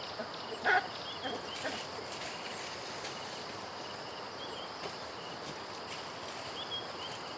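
A baboon gives one short call under a second in, with a couple of fainter calls just after. Birds then chirp faintly and sporadically over a steady outdoor background hiss.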